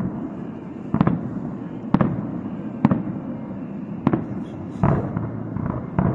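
Aerial firework shells bursting in a salute display, a sharp bang about once a second, each followed by a short echoing tail.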